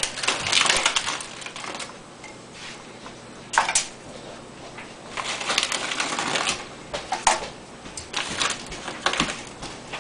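Chip bag crinkling and chips clicking and rustling onto a foil-lined baking sheet as they are taken out by hand and laid down, in irregular bursts of crackle.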